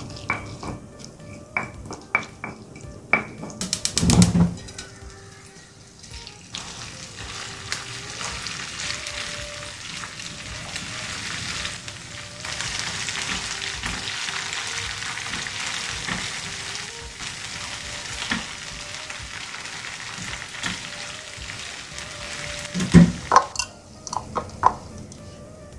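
Ground chili sambal sizzling as it fries in a frying pan, with stirring. At the start a pestle knocks several times in a stone mortar, and near the end a spatula knocks and scrapes against the pan.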